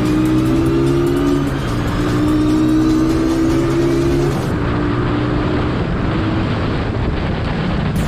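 Suzuki Raider 150's single-cylinder four-stroke engine running under way, its note shifting in pitch twice, over a steady rush of wind and road noise.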